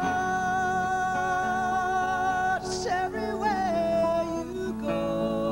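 A male singer holds one long note for about two and a half seconds over acoustic guitar, takes a quick breath, then sings a shorter phrase that slides in pitch.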